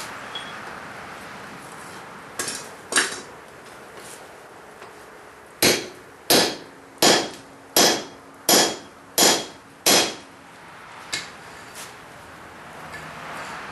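Hand hammer striking hot steel on an anvil while forging: a couple of blows, then a steady run of about seven ringing strikes, roughly one every 0.7 seconds, and a lighter tap near the end.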